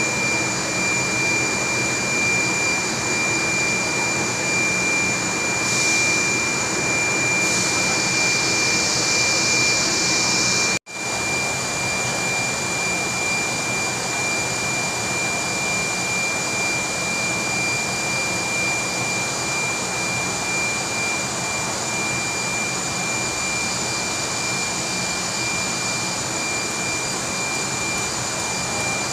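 Steady industrial machinery noise: a loud, even rush with a constant high whine. A higher hiss joins about six seconds in and stops when the sound cuts out for an instant near eleven seconds, after which the steady rush and whine go on.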